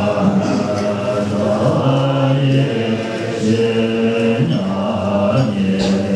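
Tibetan Buddhist monks chanting together in low voices, holding long notes that step to a new pitch every second or so.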